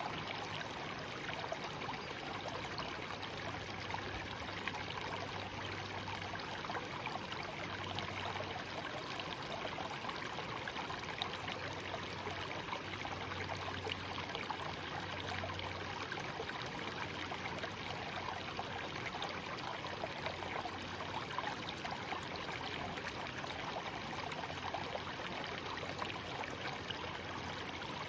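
Shallow mountain stream murmuring and trickling steadily, an even rush of water with fine splashing and no pauses.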